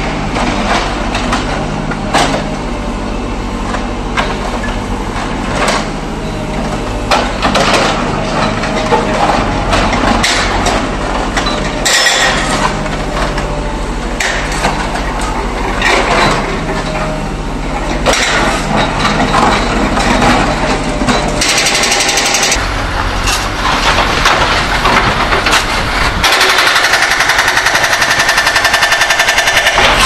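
JCB backhoe loader's diesel engine running, with irregular knocks and clatter as broken paving and soil are tipped into a steel dump truck body. About 26 seconds in, a hydraulic breaker starts hammering in fast, even strokes and becomes the loudest sound.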